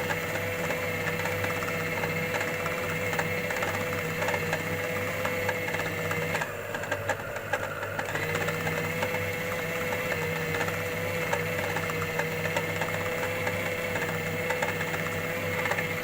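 Electric grinder motor running steadily as it grinds minced mutton, poppy seeds and herbs into a smooth kofta paste. About six and a half seconds in the motor's whine briefly drops for a second or two, then comes back up to full speed.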